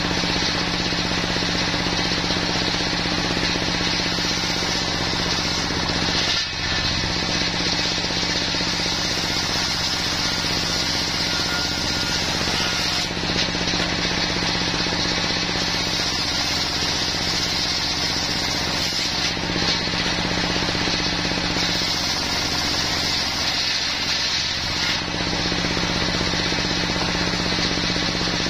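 Single-cylinder diesel engine running steadily, driving a large circular saw blade that rips a wadang timber plank lengthwise. Continuous dense machine and cutting noise, with a few brief slight dips.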